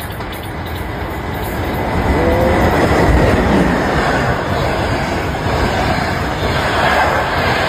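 Electric locomotive-hauled passenger train rolling past along the platform: the rumble of wheels on rail grows louder over the first few seconds as it draws alongside, then holds steady as the coaches go by, with a faint high wheel squeal over it.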